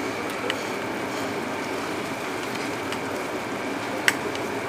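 Raisins being scattered by hand over a large pot of suji halwa, with a few light clicks, the sharpest about four seconds in, over a steady kitchen hiss.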